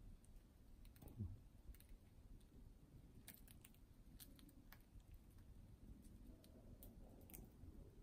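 Faint, irregular clicks of two budgerigars cracking and husking seed with their beaks, with one brief low sound about a second in.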